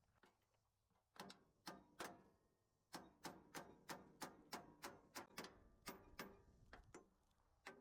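Faint, short metallic clicks: a few scattered ones, then an even run of about three a second for several seconds, from hand work on the baler's actuator mounting.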